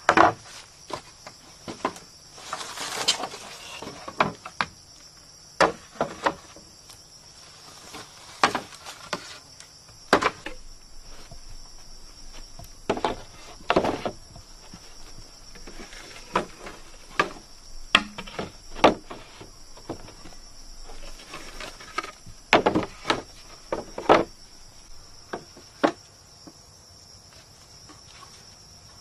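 Hollow knocks and clacks of green bamboo poles and split bamboo halves being set down and knocking against each other, at irregular intervals, with a brief rustle near the start. Under them, a steady high-pitched drone of jungle insects.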